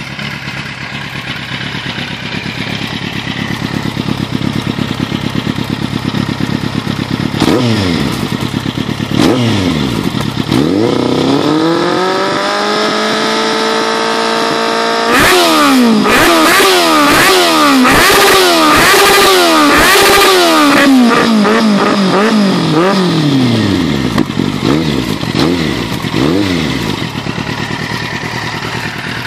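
2008 Kawasaki Z750's inline-four engine running through a short Akrapovič slip-on silencer with its dB killer fitted. It idles, is blipped twice, then held at high revs for a few seconds. After that comes a quick run of throttle blips with sharp pops between them, easing back down to idle.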